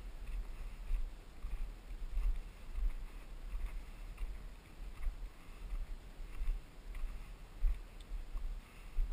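Footfalls of a runner on a dry dirt trail, a regular patter of steps, under wind buffeting the microphone in gusty low rumbles.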